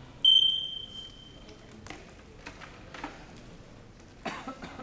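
A single high-pitched signal tone that starts sharply and dies away over about a second and a half: the cue for the kata judges to show their scores. After it come a few faint clicks and knocks.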